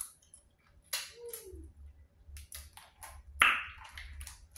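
Eating sounds from a seafood boil: scattered wet mouth clicks and smacks of chewing, with one louder crack or smack about three and a half seconds in as seafood shells are handled.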